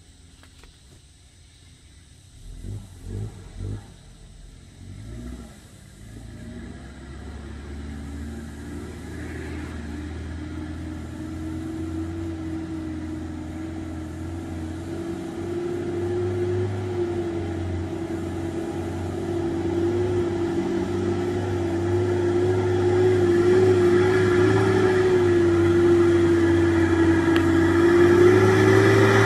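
Toyota 4Runner's engine running steadily and growing gradually louder as the vehicle crawls closer over dirt-track humps, its note wavering slightly with the throttle. A few low thumps come about three seconds in.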